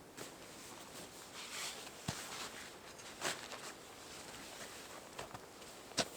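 Scattered soft rustling with a few short, sharp clicks.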